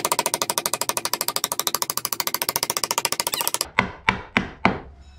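A wooden support block being knocked into place between a wooden boat's hull frames. A fast, even run of knocks gives way, nearly four seconds in, to four separate knocks about a third of a second apart.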